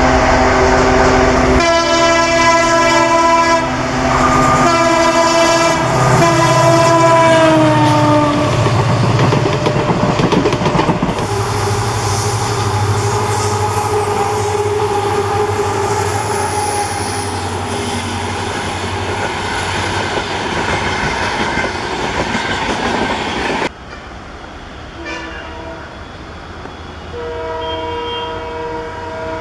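Diesel locomotive horns sounding in a string of multi-note blasts, dropping in pitch as the train passes, then the train rushing by with its diesel engines droning and its wheels clattering on the rails. Near the end, after a quieter stretch with short horn toots, a multi-note horn sounds again as a train approaches.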